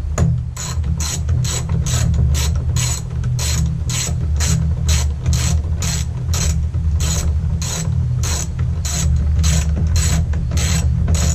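Hand ratchet clicking in quick, even strokes, about two to three a second, as it runs dashboard bolts down on a Kubota L3010 tractor. A steady low rumble runs underneath.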